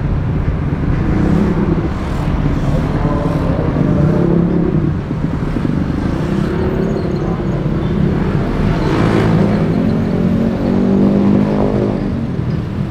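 Outside road traffic on a city street: a continuous rumble of vehicle engines whose notes rise and fall as vehicles speed up and slow down, with a louder vehicle passing close about nine seconds in.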